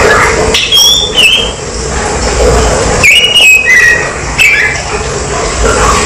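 Caged male blue-and-white flycatcher (tledekan) singing two short phrases of clear whistled notes, one about a second in and one in the middle, the second stepping down in pitch.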